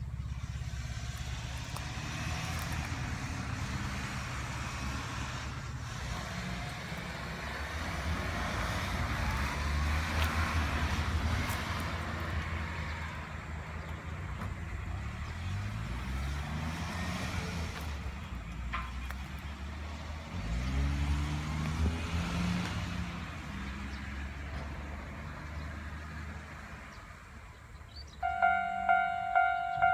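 Road vehicles running at a railway level crossing, with engines rising in pitch twice as they accelerate away. Near the end the crossing's warning bell starts, a loud ringing ding repeating about two and a half times a second, signalling an approaching train.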